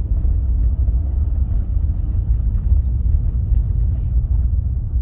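A vehicle being driven on a gravel road, heard from inside the cabin: a steady low rumble of tyres and engine.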